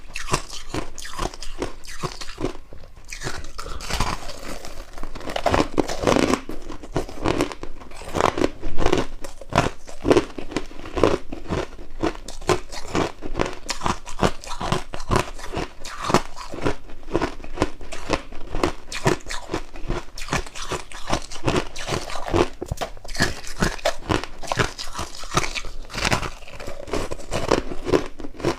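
Freezer frost being bitten and chewed: a continuous run of crisp, rapid crunches.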